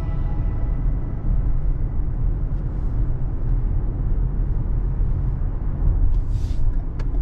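Steady low road and engine rumble of a moving car heard from inside its cabin. A short hiss comes about six seconds in, with a single click just after.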